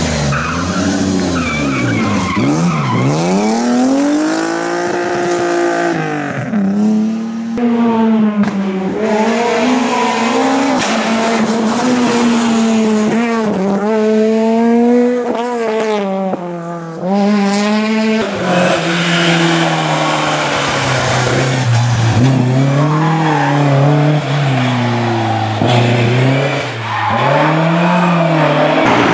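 Rally cars driven flat out past the spectators on a tarmac stage, one after another, a Peugeot 208 rally car among them. The engines rev hard, rising and falling through gear changes and braking, with tyre squeal.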